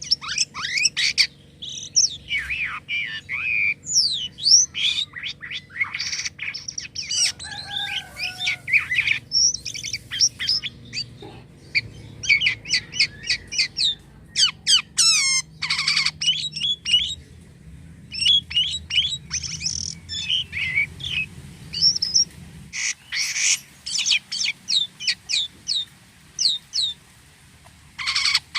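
Jalak kapas starling singing nonstop in a fast, varied run of chirps, whistles and harsher squawky notes.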